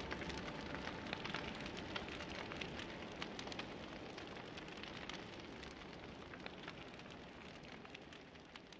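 Steady crackling, pattering noise with many scattered clicks, with no music, fading out slowly.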